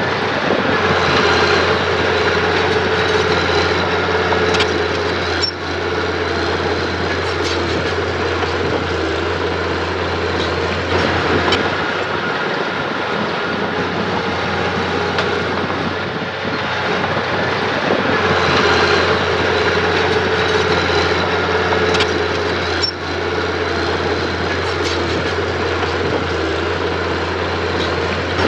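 Earthmoving machine's engine running steadily at working speed, with a few brief sharp clanks.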